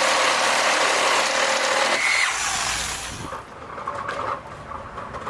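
DeWalt reciprocating saws cutting flush through wood with embedded fasteners: a loud rasping buzz over a steady motor whine that stops about two seconds in, leaving a quieter low rumble.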